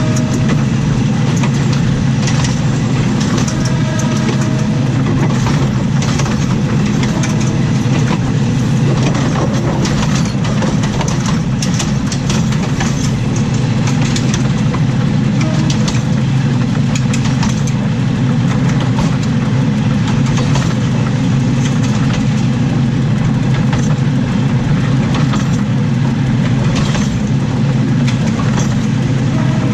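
Steady, loud rumble from under a moving diesel railcar: the wheels running on the rails together with the running gear, with irregular sharp clicks and knocks from the track.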